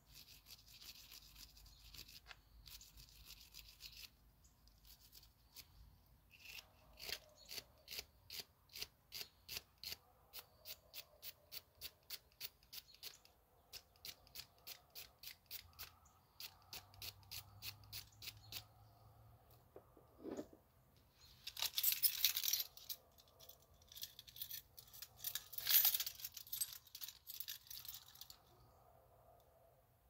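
Hand-tool work on a car engine: a long run of even ratchet clicks, about three a second, with bursts of rough scrubbing noise at the start and, louder, near the end.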